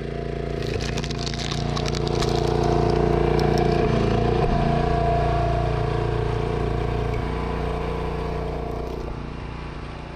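Log splitter's engine and hydraulics running steadily under load as the wedge forces through a red river gum round. The wood cracks and crackles sharply over the first few seconds as it splits, and the sound fades out near the end.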